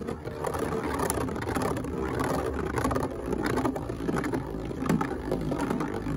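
Two metal Beyblades, Gravity Destroyer and Galaxy Pegasis, spinning on a plastic stadium floor: a steady rattling whir with scattered short clicks.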